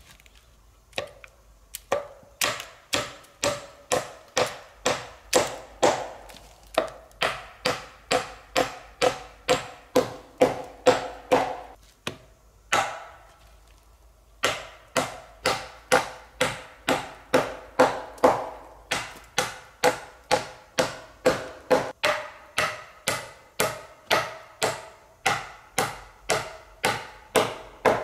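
Steady hammering on wood, about two to three blows a second, each with a short ringing note, pausing for a couple of seconds about twelve seconds in: roof poles being fastened at the ridge beam of a log shelter.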